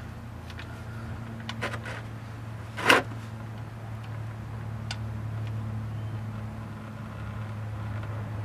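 Faint clicks of a gloved hand unscrewing a car's oil drain plug, with one short, sharp scrape about three seconds in, over a steady low background hum.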